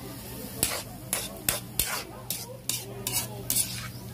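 A metal spatula scraping and stirring around a metal wok, about two irregular strokes a second, over the sizzle of chilies, onions and garlic frying in soy sauce and vinegar.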